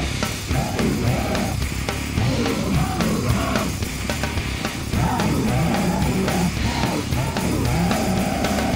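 Live rock band playing loud: electric guitars and a drum kit going without a break.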